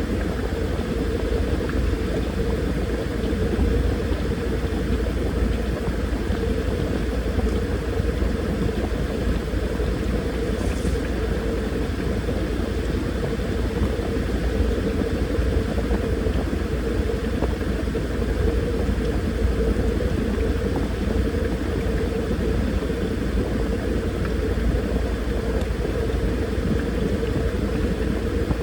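Washing machine running, its motor and drum making a steady hum over a low rumble.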